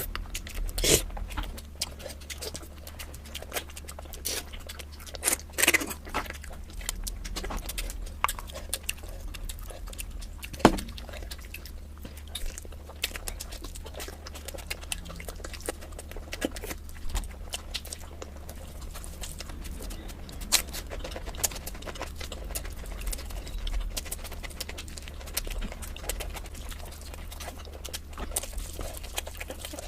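Close-miked mukbang eating sounds: irregular chewing with wet mouth clicks and crackles, over a steady low hum.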